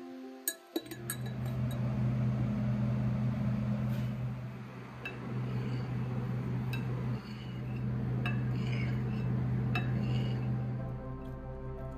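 Steady low electrical hum of a running appliance, with scattered light clinks of glass and dishes. Background music fades out about a second in and comes back near the end.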